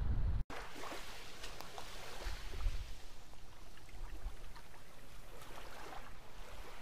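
Wind buffets the microphone for half a second, then cuts to calm sea water lapping gently at a pebble shoreline, with small irregular trickles and clicks of water washing over the stones.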